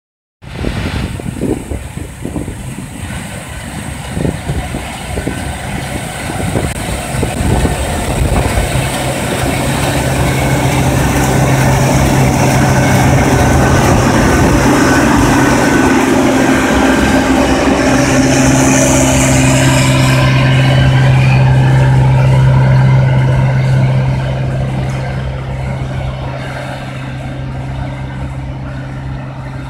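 Case IH cotton picker running as it harvests: a steady low engine drone with higher mechanical whine, growing louder as it passes close by and fading from about three-quarters of the way through as it moves off down the rows.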